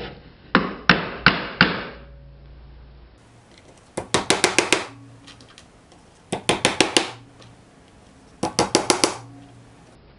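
Hammer striking nails into the wooden front board of a bluebird nest box: four bursts of quick taps, four to six strikes each, with pauses of a second or two between them.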